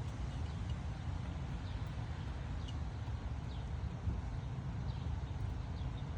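Strong gusty wind buffeting the microphone in a low, steady rumble, with a few short high chirps from birds now and then.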